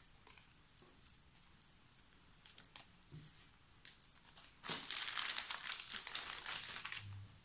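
Paper die-cuts and embellishments being handled and sorted: soft rustles and small clicks, then about two seconds of louder crinkling starting a little under five seconds in.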